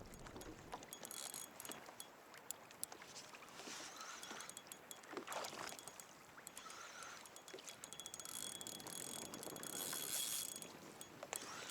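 Faint water sounds and irregular small ticks and clicks of fishing gear on a drifting kayak.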